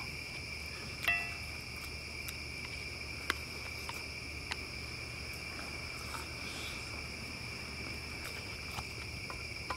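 Crickets chirping in a steady, unbroken chorus, with a few light clicks of eating utensils against bowls.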